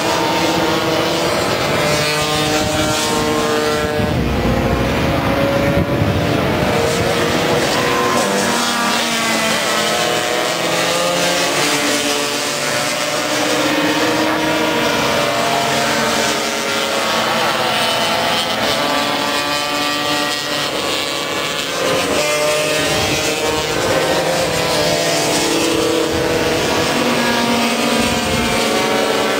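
Several racing scooters' two-stroke engines (Vespa and Lambretta) running hard and passing one after another. Their overlapping engine notes rise and fall in pitch throughout.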